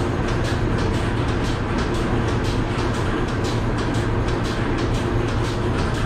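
Goat milking machine running: a steady hum from the vacuum system under an even, rapid ticking of the pulsators, about three clicks a second.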